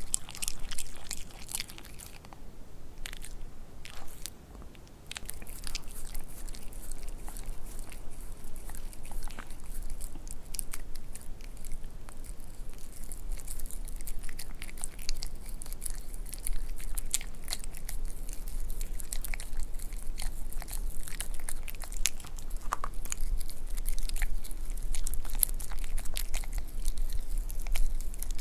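A white Pomeranian biting and chewing a piece of beef rib meat held to its mouth, picked up close: a dense, steady run of small chewing and biting clicks, with a short quieter lull a few seconds in.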